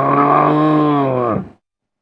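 Monocorn creature call sound effect, mixed from animal and dinosaur calls: one long, low, pitched call that holds steady, then drops in pitch and cuts off about a second and a half in.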